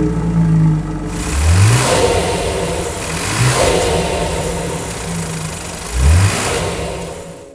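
BMW X3 M50's 3.0-litre inline-six engine running steadily, then revved in three short blips, each a quick rising note that falls away.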